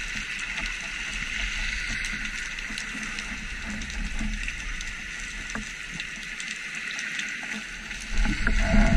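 Underwater ambience picked up by an action camera in its housing while spearfishing: a steady hiss with scattered faint clicks. A low rumble of water movement builds near the end.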